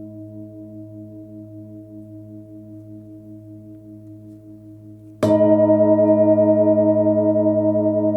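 A 26 cm Nepalese singing bowl, with its low fundamental near 107 Hz, rings with a slow pulsing waver and fades gently. About five seconds in it is struck again and rings out loud with many overtones.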